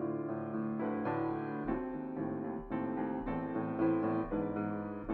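Solo piano playing a classical piece, a continuous flow of notes and chords.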